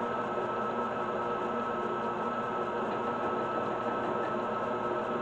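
Steady hum of a kitchen appliance motor, with a constant whine over an even whirr.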